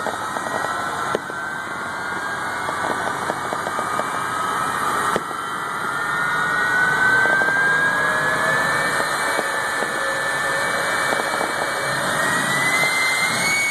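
Jet engine of a jet-powered Kenworth semi truck running at the starting line, a steady rush with a whine that slowly rises in pitch as the turbine spools up.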